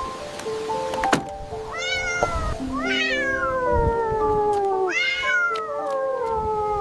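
A cat meowing three times, each a long meow that rises briefly and then falls in pitch, over background music of held notes. A single sharp click about a second in.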